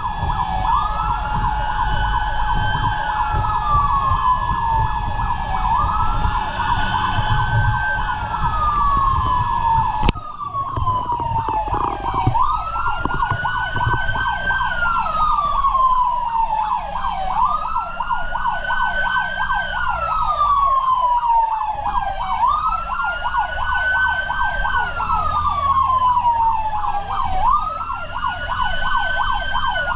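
Fire truck's electronic siren wailing, rising over about two seconds and falling over about three, repeating every five seconds, over the truck's engine rumble. A second steady tone sounds with it and stops abruptly about ten seconds in.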